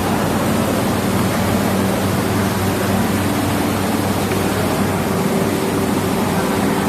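Steady, even rushing noise with a faint low hum under it.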